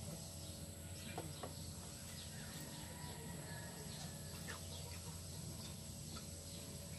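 Faint chickens clucking in the background over a steady low hum, with a few light clicks.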